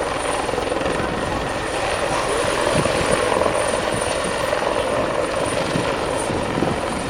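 Bell 412 twin-turbine helicopter running steadily close by: a continuous dense rotor and engine noise with a thin, high, steady whine above it.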